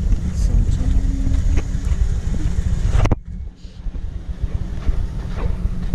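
Off-road vehicle driving along a rough dirt trail: a steady low rumble of engine and tyres. About three seconds in there is a sharp click, the sound drops away briefly, then the rumble picks up again.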